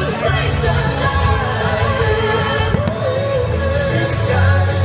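A song with a sung vocal over sustained low bass notes.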